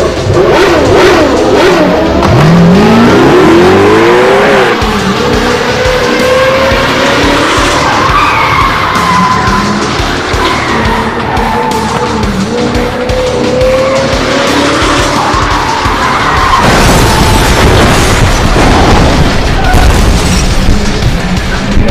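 Music mixed with race-car sound effects: an engine revving and tyres squealing through drifts. The engine revs climb sharply twice in the first few seconds, and the sound grows louder and fuller about 17 seconds in.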